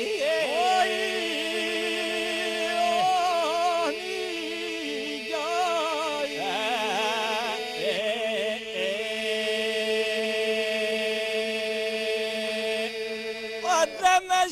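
Albanian folk song sung by a group of men: a steady held drone with ornamented lead voices winding above it, in the manner of southern Albanian polyphonic singing. The song breaks off near the end.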